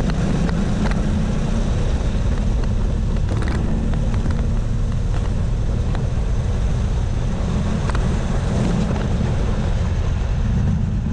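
Go-kart engine running hard on track, heard close up from onboard, its pitch rising and falling a little through the lap.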